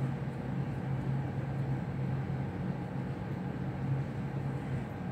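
Steady low hum over a soft, even hiss: background room noise with no distinct knitting-needle clicks.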